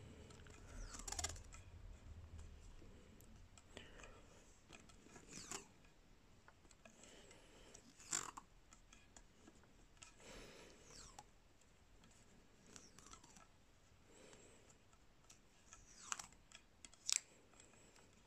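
Faint, intermittent crackling and rasping of electrical tape being peeled off its roll and wound tightly round a fishing rod handle, with a couple of sharper ticks near the end.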